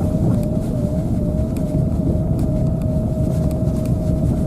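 Car cabin noise while driving: a steady low road and engine rumble with a thin, steady whine running over it.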